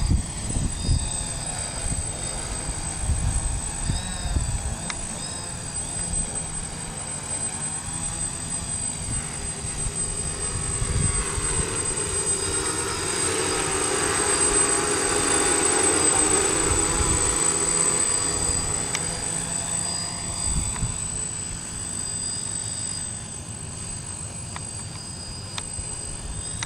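DJI F550 hexacopter in flight, its motors and propellers whirring with several whining tones that shift in pitch. It grows louder about halfway through and fades again, with wind buffeting the microphone.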